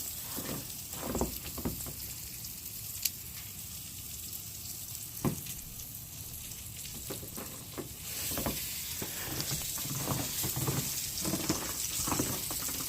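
Tomahawk steak sizzling as it cooks: a steady hiss with occasional pops, growing louder about eight seconds in.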